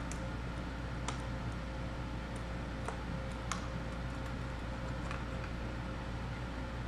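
A handful of light, irregular clicks and taps as the outboard water pump housing is wiggled loose and slid up the driveshaft off the lower unit, over a steady low hum.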